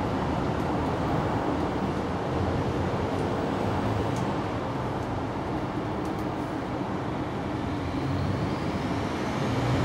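Steady low mechanical rumble with a hum, unchanging throughout, and a faint high whine rising near the end.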